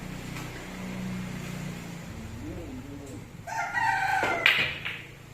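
A rooster crowing once, a held call of about a second and a half starting about three and a half seconds in. A sharp click near the end of the crow is the loudest moment.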